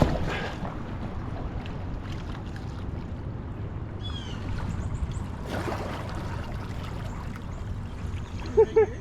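A canoe drifting on a river: a steady low rumble of wind and water, with a couple of brief swishes of a paddle in the water and a few high chirps about four seconds in.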